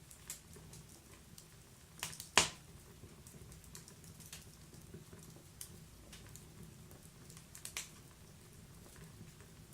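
Wood fire burning in a wood-burning stove, crackling with scattered sharp pops over a faint low rumble. One loud pop comes about two and a half seconds in, and another cluster of pops about three-quarters of the way through.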